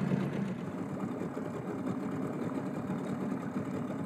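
Small outboard motor running steadily at a fast, even putter, pushing a dinghy across calm water.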